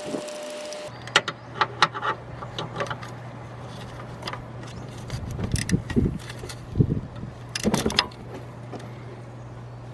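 Hand tools working under the hood: several sharp metal clinks and clicks, then a few duller knocks and more clinks, over a steady low hum.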